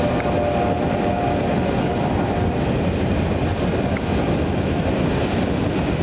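Freight train of autorack cars rolling past: a steady rumble of steel wheels on rail.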